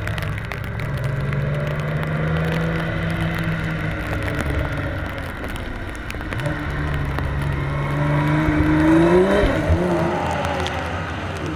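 1961 Ford Zephyr's straight-six engine being driven hard: it holds steady revs, eases off about four seconds in, then climbs in pitch under acceleration to its loudest near nine seconds in before the revs drop sharply.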